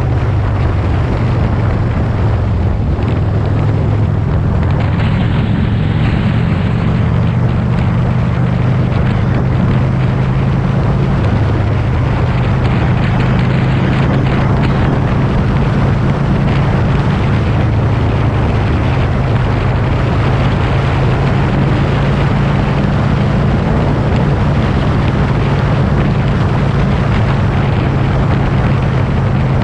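A motor vehicle engine running steadily at cruising speed, with heavy wind rushing over the microphone.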